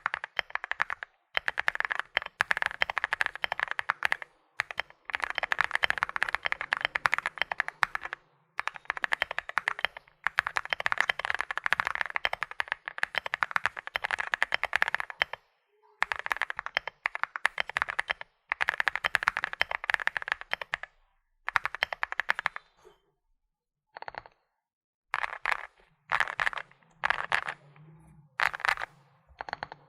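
Finalkey V81 Plus mechanical keyboard with WS Morandi switches being typed on fast: dense runs of key clacks lasting several seconds each, broken by short pauses, then thinning to scattered keystrokes and short bursts over the last several seconds.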